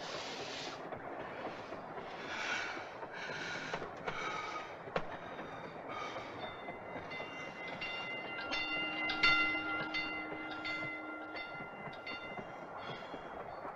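Train rumbling and rattling. From about halfway through, several steady high tones sound together and are held, like a train whistle.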